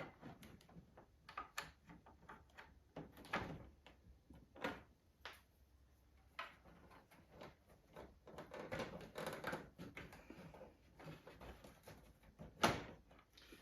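Hard plastic parts of a 1970s Kenner Bionic Transport and Repair Station playset being handled and fitted together: scattered light clicks, knocks and rustles, with one sharper click near the end.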